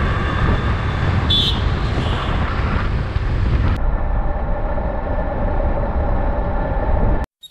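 Yamaha XTZ 250's single-cylinder engine running under way, mixed with wind rumble on the bike-mounted microphone. About four seconds in the sound turns duller, and it cuts off abruptly just before the end.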